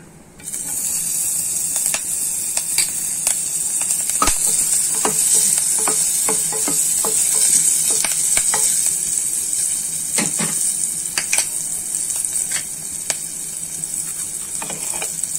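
Green chillies and cumin seeds sizzling in hot butter in a steel pan, the sizzle starting suddenly about half a second in. Scattered clicks and scrapes of a wooden spatula stirring against the pan run through it.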